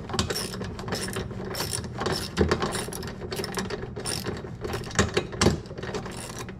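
Ratchet clicking rapidly as it drives a bolt into a GE washing machine's clutch and actuator assembly, with a few louder knocks along the way.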